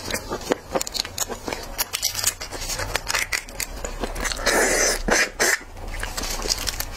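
Close-up crackling and clicking of a raw red shrimp's shell being peeled apart by plastic-gloved hands, with a louder rustling crackle about four and a half seconds in.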